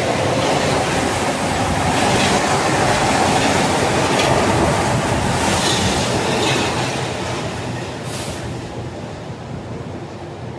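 Rubber-tyred Mexico City Metro Line 1 train running past on the adjacent track, a loud steady rolling rumble with a few brief high squeals, fading from about seven seconds in as it pulls away.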